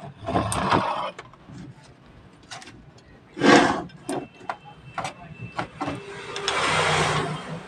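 Handling noise from the CRT TV's circuit board being turned over and moved: three bursts of rustling and scraping with several sharp clicks and knocks in between.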